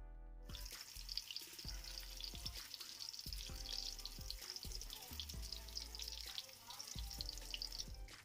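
Food frying in hot oil in a pan: a steady sizzle with fine crackles, over background music.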